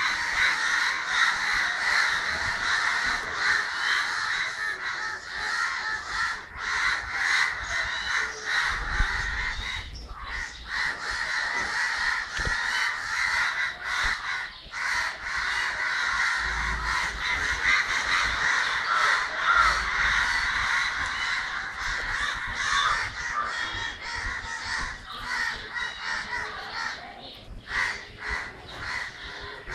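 A flock of crows cawing, many harsh calls overlapping without a break.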